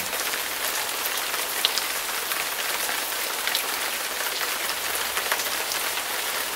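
Steady rain falling, an even hiss with a few louder drips.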